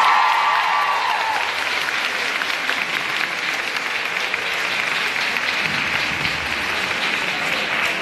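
Audience clapping steadily: a room full of applause.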